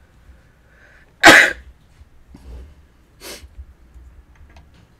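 A person sneezes once, loudly, about a second in, with a short intake of breath just before it. About two seconds later comes a softer breathy burst.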